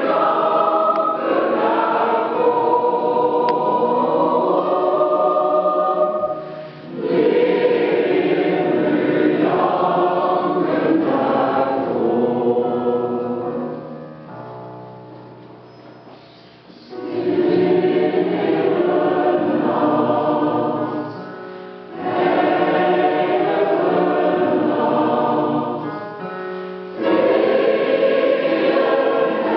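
Mixed choir of men's and women's voices singing in phrases, with brief breaks between them; about halfway through the singing grows softer and fades low before the voices come back in strongly.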